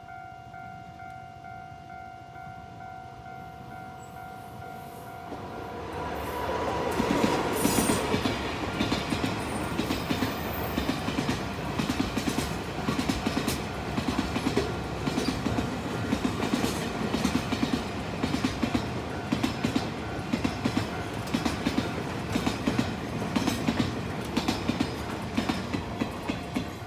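Level-crossing warning bell ringing steadily, then from about six seconds a long freight train of loaded flatcars passing close by. Its wheels clatter rhythmically over the rail joints and the crossing, loudest as it first arrives, and the clatter drowns out the bell.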